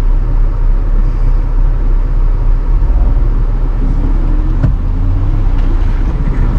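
Jeep engine running with a heavy low rumble, revving up about three seconds in as it is driven through a mud hole on the trail.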